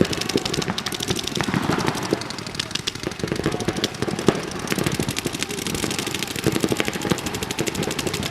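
Paintball markers firing in rapid, overlapping strings of pops during a game, heard from a distance.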